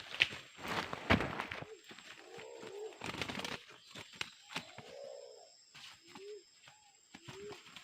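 A snared megapode (scrubfowl) gives short, low, arched calls every second or two, between bursts of loud rustling and thrashing.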